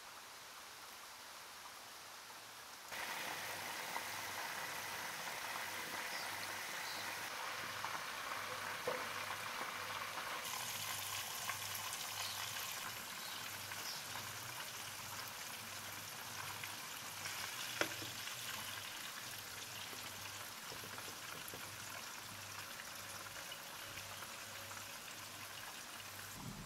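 Chicken wings deep-frying in hot oil in a pan: a steady sizzle that gets louder about three seconds in, with a few faint clicks.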